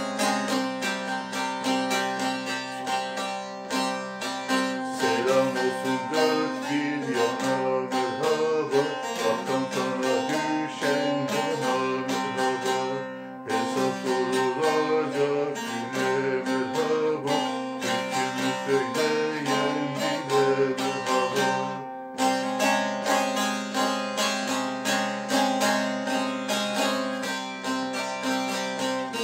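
Instrumental music: quickly plucked string instruments play a folk melody over sustained lower notes. There are two brief breaks, about 13 and 22 seconds in.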